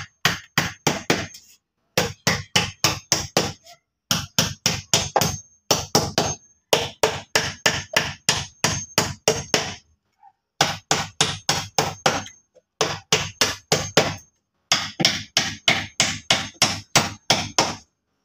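Rapid hammer blows in runs of several strikes, about four to five a second, broken by short pauses; some blows ring faintly like metal.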